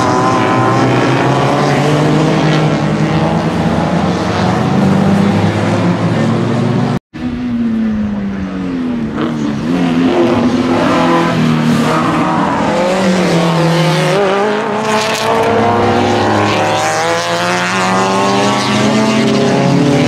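Several Alfa Romeo and Fiat club race cars lapping and passing at racing speed, their engine notes overlapping and rising and falling as they accelerate, change gear and go by. The sound drops out for a moment about seven seconds in.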